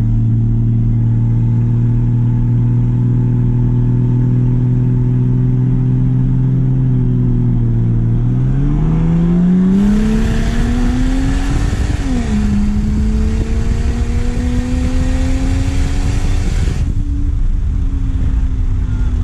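Performance car engine heard from inside the car, holding a steady note on a rolling start, then going to full throttle about eight seconds in with the note climbing. The note drops briefly at a gear change around twelve seconds in and climbs again under a loud rush of wind and exhaust. About seventeen seconds in the driver backs off and the note slowly falls.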